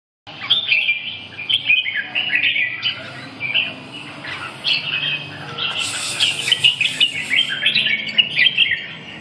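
Caged red-whiskered bulbul singing: short, bright chirping phrases repeated one after another, busiest about six seconds in. This is the sparring song of a bulbul kept for song fighting.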